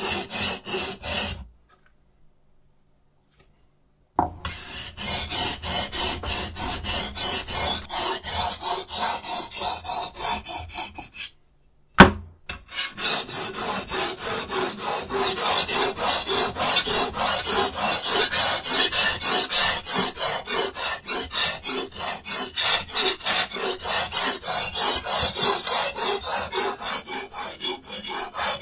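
Knife blade drawn back and forth across a diamond sharpening stone in a Hapstone T1 guided sharpener: a steady rhythm of rasping strokes, about three or four a second. Twice the strokes stop for a few seconds, and a single sharp click sounds in the second pause.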